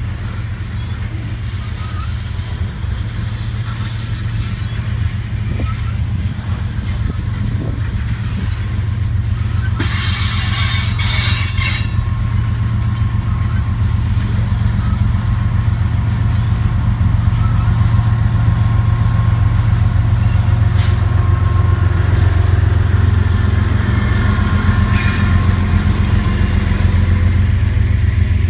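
Freight train of tank cars rolling by, with a steady low rumble, a brief hiss about ten seconds in, and a diesel locomotive at the rear coming past, its engine hum growing louder toward the end.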